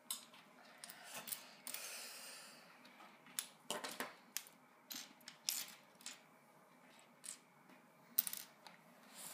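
Light, scattered clicks and taps of small hard objects knocking together, about a dozen sharp ones, with a short rustle about two seconds in.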